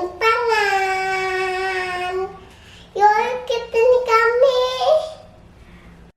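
A young child singing: one long held note for about two seconds, then after a short pause a run of short sung syllables.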